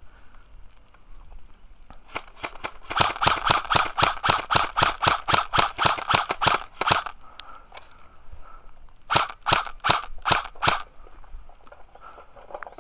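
Airsoft rifle firing rapid single shots, about five a second, starting about two seconds in and running for some five seconds. After a short pause comes a second, shorter string of shots.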